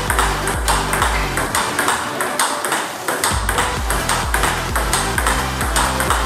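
Electronic background music with a steady beat and a bass line that drops out for a moment about two seconds in, over the quick, regular clicks of a table tennis ball being hit back and forth in a forehand topspin rally.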